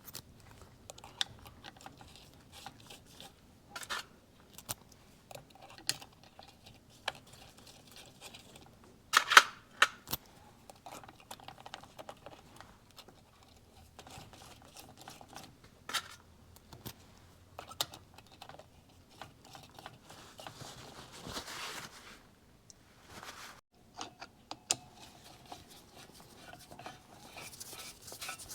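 Scattered small metal clicks and clinks of clutch springs and their screws being handled and fitted on a two-stroke motorcycle clutch, with one louder clank about nine seconds in.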